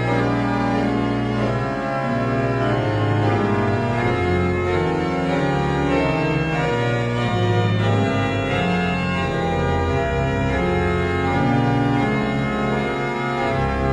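Slow music of long held chords on a sustained keyboard sound, with the chord changing about every second.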